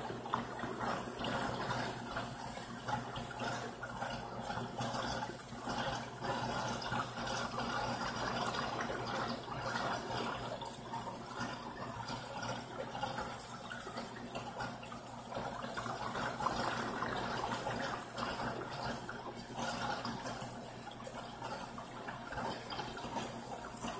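Steady running water from a saltwater reef aquarium's circulation and filtration, with a faint low hum underneath.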